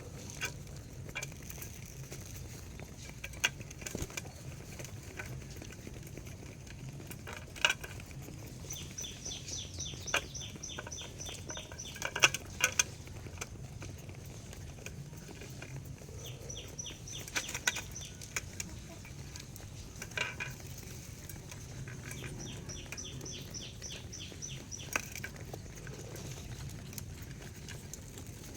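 A large flock of pigeons: scattered wing flaps and claps, with several bursts of rapid, high, repeated chirping, over a steady low hum.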